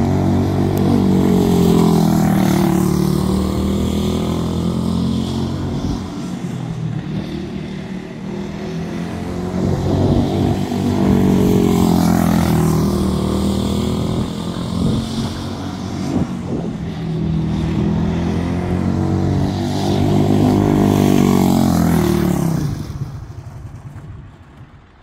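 Quarter midget race car's single-cylinder Briggs & Stratton Animal engine running laps, swelling and dropping in pitch as it passes close three times. Its sound dies away about two seconds before the end.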